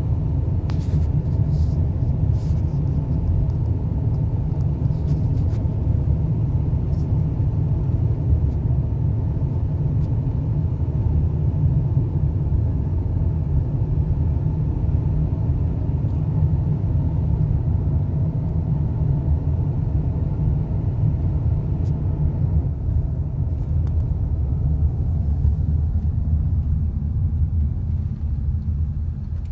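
Steady low road rumble inside a moving car's cabin, from the engine and tyres at cruising speed, easing off slightly near the end.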